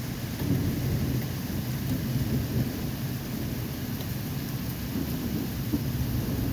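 Low rolling rumble of distant thunder that keeps going, over the steady hiss of falling rain.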